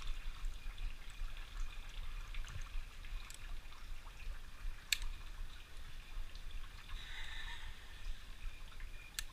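Spring water trickling and dripping over rock and sand. A few sharp clicks come through, the loudest about five seconds in, as carabiners and rappel gear are handled.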